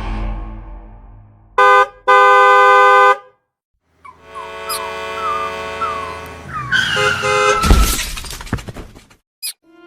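A vehicle horn honking twice, a short toot then a blast of about a second, followed after a brief silence by a mix of sound effects with sliding squeaky tones and a noisy clatter.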